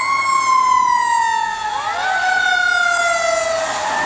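Fire engine siren wailing: the pitch slides slowly down after a rise, and a second wail rises in over it about two seconds in.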